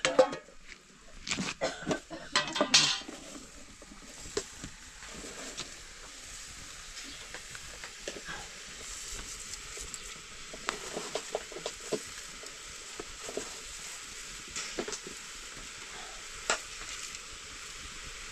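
Food sizzling as it fries in a pan, with a utensil stirring and clinking against the pan. A burst of clattering knocks comes in the first three seconds, then a steady sizzle with scattered clicks.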